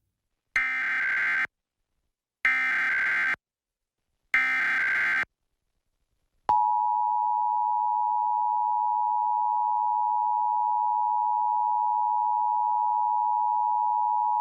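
Emergency Alert System test signal: three short bursts of SAME header data, buzzy warbling digital tones each just under a second long, then the EAS attention signal, a steady two-tone alarm of 853 and 960 Hz held for about eight seconds.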